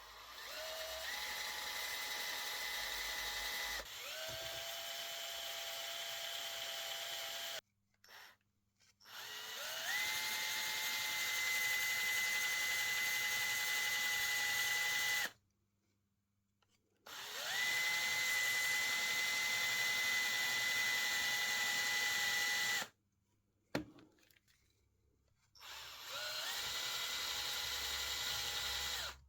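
Small electric power tool, drill-like, run in four separate bursts: each spins up with a rising whine, holds a steady high whine for a few seconds, then cuts off suddenly. A brief blip just after the first stop and a single sharp click about two-thirds of the way through fall in the gaps.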